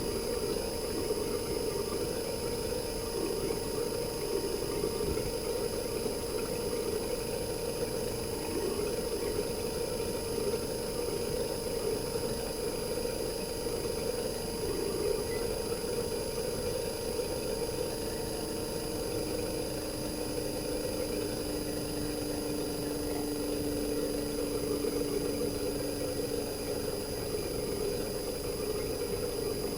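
RECHI 43W26SH single-rotary inverter compressor from a Sharp AU-J25XY air conditioner outdoor unit, running steadily with its casing opened up: a dense, even hum with faint high steady whines above it. About two thirds of the way in, a lower steady tone joins and holds.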